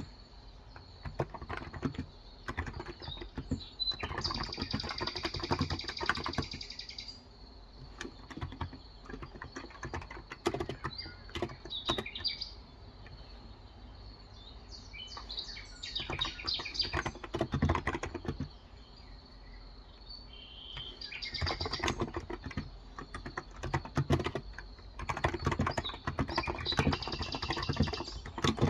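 Typing on a Cox Endeavour electrostatic capacitive (Topre-style) tenkeyless keyboard with 35 g keys, in runs of quick keystrokes separated by pauses. Birds chirp in the background.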